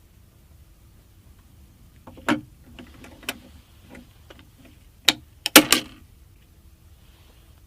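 Sharp clicks and knocks of hard plastic or metal parts being handled during a PC build: two single knocks, then a quick cluster of louder clicks.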